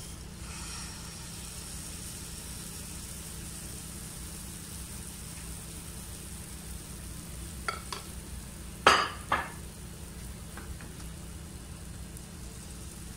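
Pancake batter sizzling steadily in hot oil in a frying pan. A few sharp knocks come about eight seconds in, the loudest a pair about nine seconds in.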